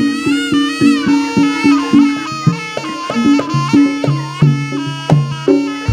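Live jaranan gamelan music: a nasal reed horn (slompret) plays a wavering, gliding melody over a steady kendang drum beat of about three strokes a second and ringing gong-chime notes.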